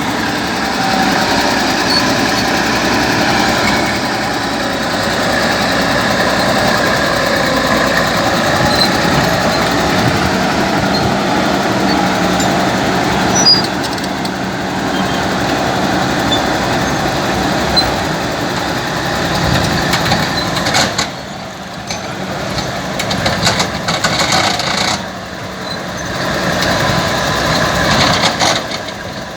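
Komatsu D80A-12 crawler bulldozer's diesel engine running hard while the machine rips ground, a steady heavy mechanical din. Twice in the last third the sound drops off briefly, then picks up again.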